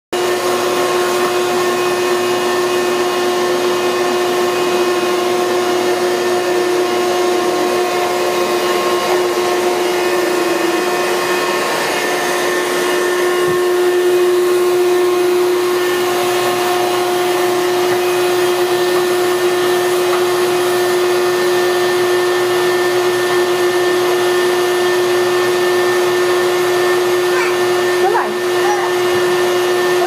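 Shop-Vac 6-gallon wet/dry vacuum running steadily, a loud continuous motor noise with a steady pitched whir.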